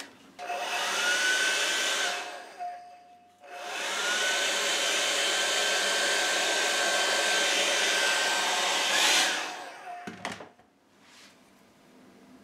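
Hand-held hair dryer blowing on wet alcohol ink to dry it. It runs in two goes: a short one of about two seconds, then after a brief pause a longer one of about six seconds, its motor whine rising each time it starts. A click follows the second run.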